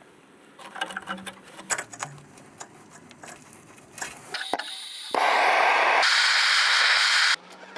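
Semi-automatic (MIG) welder running a short weld on thin 0.8 mm sheet steel with 0.6 mm wire: a steady, loud hiss of about two seconds that starts and stops abruptly. Before it come scattered clicks and light clatter of metal being handled.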